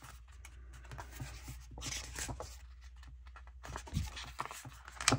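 Paper pages of a sticker book being turned and handled, with soft rustling and sliding and a few light taps. A sharper click comes near the end.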